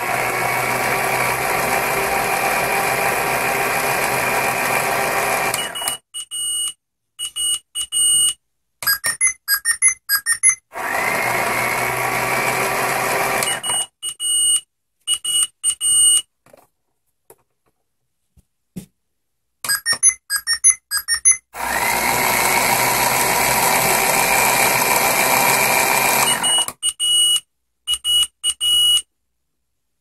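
Battery-operated toy washing machine running: its small drum motor hums in three runs of a few seconds each, each starting with a rising whine, with short electronic beeps in between.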